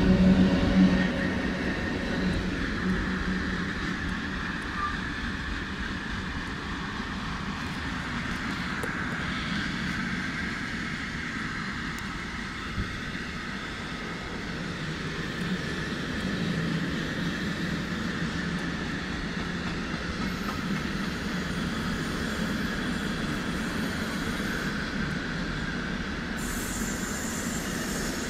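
PKP Cargo ET22 six-axle electric locomotive going past with a low hum over the first two seconds or so, followed by its long container freight train rolling by. The wagons' wheels give a continuous rumble on the rails with a thin, steady high squeal.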